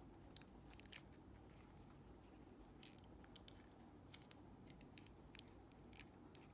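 Faint clicks and scratches of fingers working a foam sponge cover onto the plastic earcup of a Sony MDR-Q38LW clip-on headphone, about a dozen small ticks scattered irregularly.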